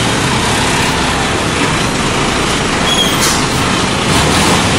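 A truck's engine running close by in traffic on a flooded road: a steady low drone under a dense, even wash of noise.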